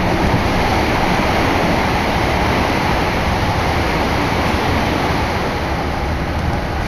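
Tokyo Metro Yurakucho Line subway train running underground, heard from inside the car: a loud, steady roar.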